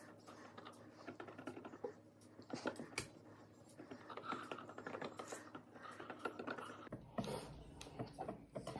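Knives tapping and scraping on a cutting board while shapes are cut out of rolled cookie dough: a faint, irregular run of small clicks and scratches.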